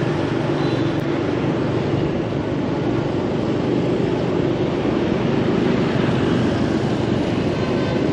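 Steady vehicle and road noise of riding through city traffic: a continuous engine-and-road hum with no distinct events standing out.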